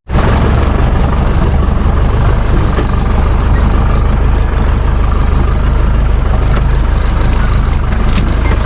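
Four-wheel-drive jeep on the move: a loud, steady engine and road rumble with a heavy low drone and no change in pace.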